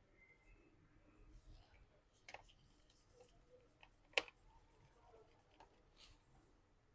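Faint handling of small screws and a screwdriver while refitting the screws into a laptop's base, with two sharp clicks, the louder one about four seconds in.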